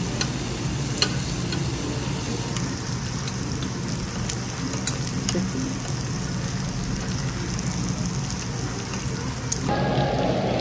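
Sliced pork intestines (makchang) sizzling steadily on a hot griddle plate, with scattered fat spits and pops. Near the end a louder, denser hiss takes over.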